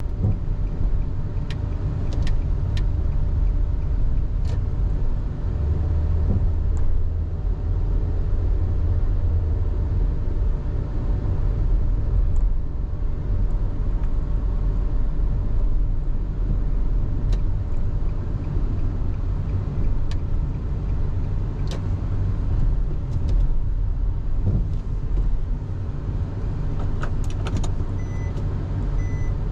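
A car being driven, with a steady low rumble of engine and road noise and a few light clicks. Near the end a pulsing reversing beep starts.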